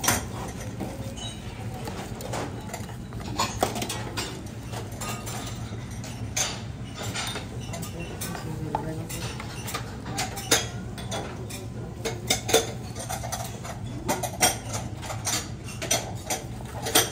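Cutlery and dishes clinking at a buffet counter: scattered sharp clinks of serving spoons and plates over a steady low hum.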